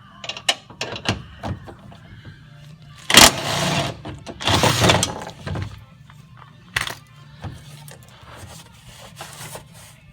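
Impact wrench with a 15mm socket hammering in two short bursts, about three and four and a half seconds in, loosening the nut on the seat-mounting stud. Scattered clicks and knocks of the socket and tool against metal come around them.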